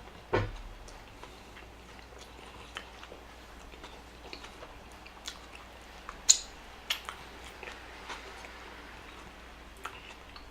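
Close-miked chewing of a Burger King Whopper: scattered sharp mouth clicks over a low background, with a thump about half a second in and the loudest click a little past the middle.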